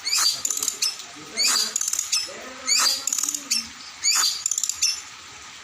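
A songbird singing: loud, sharp, high-pitched harsh calls repeating about once every second and a half, with quick stuttering chatter between them.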